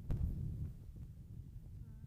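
Wind buffeting the microphone, a low rumble, with a sharp knock just after the start; the rumble eases off through the second half.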